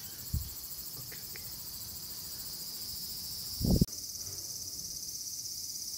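Steady, high-pitched chorus of insects with a pulsing texture. A soft low thump comes about a third of a second in and a louder one just before four seconds, then the sound drops out for an instant and the chorus resumes.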